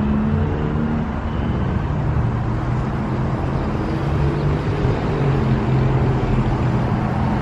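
Steady traffic noise with a vehicle engine running nearby, a low hum that drifts a little in pitch over the road noise.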